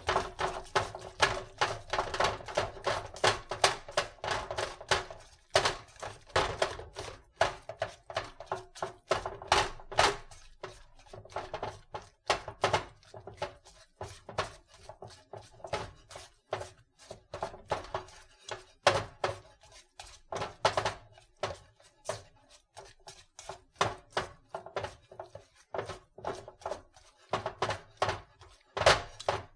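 A hand kneading mashed potato and flour dough in a stainless steel mixing bowl: quick repeated thunks of the hand pressing the dough against the metal, about four a second at first, then coming more unevenly in short runs.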